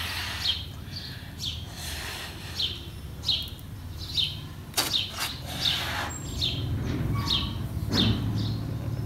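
A small bird chirping over and over, a short falling chirp about once or twice a second. About halfway through, a few sharp rubbery squeaks come from a latex balloon being handled and tied.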